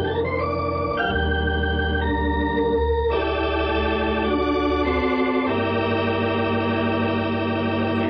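Organ playing a short music bridge of sustained chords that change every second or so, as used between scenes in a radio drama.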